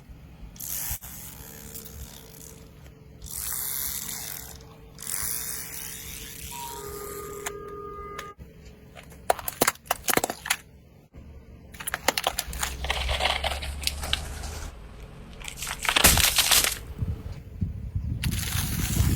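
Objects crackling, scraping and cracking as they are crushed, in a string of separate bursts. A low rumble comes in partway through, and the loudest crack comes near the end.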